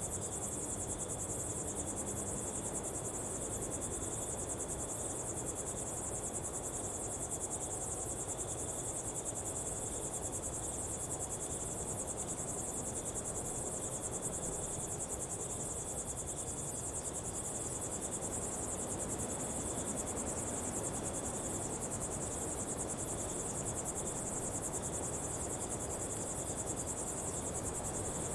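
Steady, high-pitched chorus of insects trilling in a rapid, even pulse, with a thinner, lower trill running alongside it over a soft, low background hiss.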